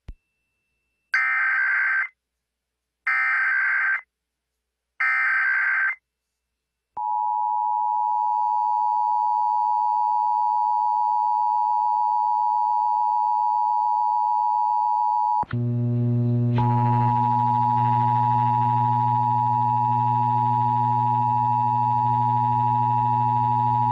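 Emergency Alert System broadcast on radio: three short, screechy digital data bursts of the EAS header code, about a second apart. They are followed by the steady two-tone EAS attention signal. About fifteen seconds in, a low hum joins the attention tone.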